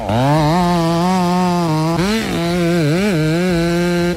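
Two-stroke chainsaw running at high revs, its pitch dipping briefly and recovering about two seconds in and again around three seconds in, as the chain loads up in the cut.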